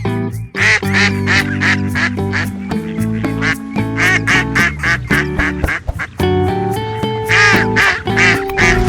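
Ducks quacking in quick repeated calls over background music with held notes.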